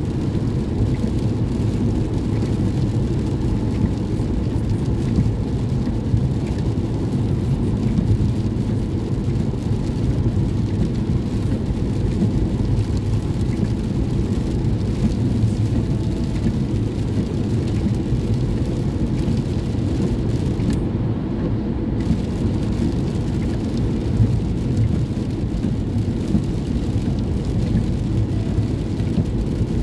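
Steady cabin noise of a car driving at freeway speed on a rain-soaked road: tyre and road noise from the wet pavement, mixed with rain on the car.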